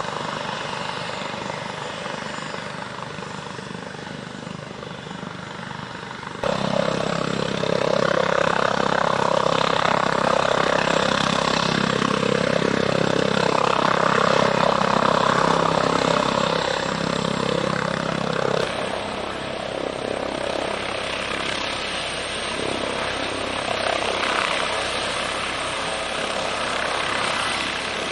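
Airbus H145 D3 helicopter's twin Arriel 2E turboshaft engines and five-bladed rotor running on the ground at flight idle and above, a steady turbine and rotor noise. It jumps suddenly louder about six seconds in, eases somewhat after eighteen seconds, and ends with the helicopter lifting into a low hover.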